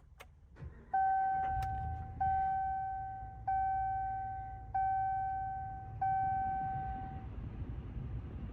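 Dashboard warning chime of a Ram 1500 pickup sounding five times, about one and a quarter seconds apart, each tone fading away, over the low hum of the idling 5.7-litre HEMI V8. A few light clicks come just before the chimes.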